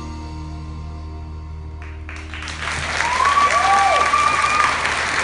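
The music's last held chord fades. About two seconds in, audience applause breaks out and grows loud within a second, with a few high cheers over it.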